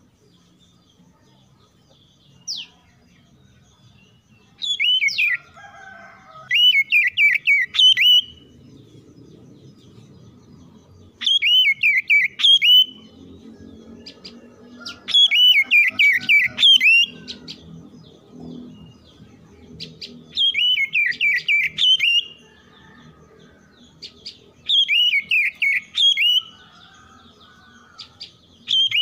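Oriental magpie-robin singing: a short phrase of quick, rising-and-falling whistled notes, repeated every few seconds.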